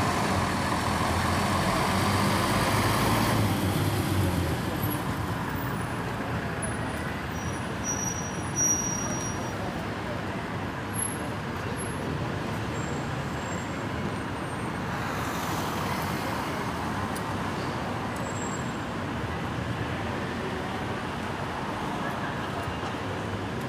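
Steady road traffic noise on a city street, louder and deeper for the first few seconds as a heavier vehicle runs close by.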